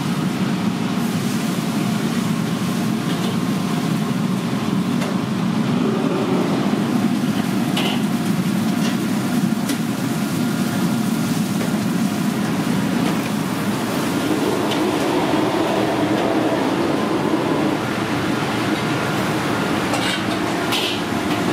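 Steady loud mechanical rumble with a few light clicks near the end.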